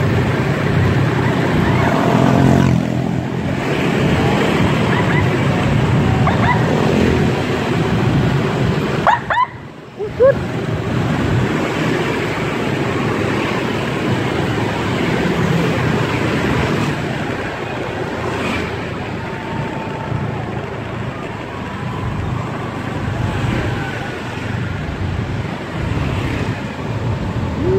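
Motorcycle riding through town traffic: steady engine and road noise, with a short dip about nine seconds in.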